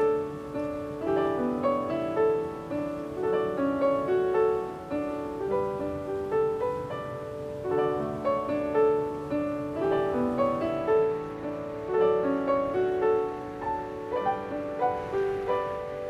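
Background piano music: a steady run of single notes, several a second.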